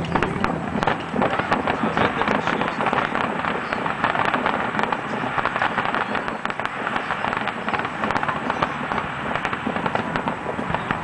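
Fireworks display going off: a dense, continuous crackle of many small reports in quick succession, with sharper bangs scattered through it.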